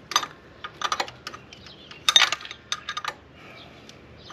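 Hand wrench clinking and clicking against the bolt head and compressor bracket in short, irregular strokes, the loudest clink about two seconds in, while snugging a newly started AC compressor mounting bolt.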